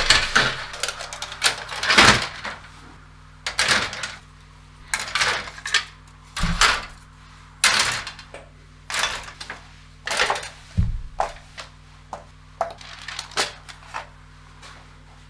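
Plastic model-kit sprues and fuselage halves being handled and set down on a table: irregular clicks, light clatter and rustles, one after another.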